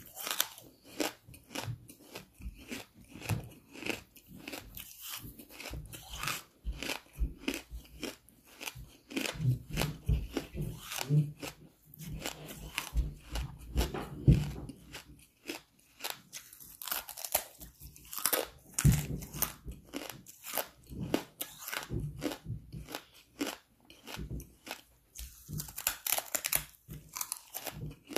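A person biting and chewing hard charcoal close to the microphone: a steady run of sharp, irregular crunches, with thicker flurries of crunching about two-thirds of the way through and again near the end.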